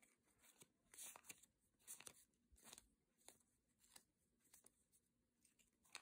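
Faint papery flicks and slides of glossy Topps soccer trading cards being thumbed off a stack one at a time, a brief scrape roughly every half second.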